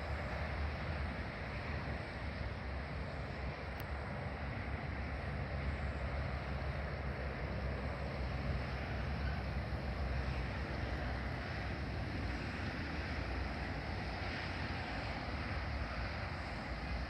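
Steady low rumble with a fainter hiss of wind on the microphone outdoors; no birdsong stands out.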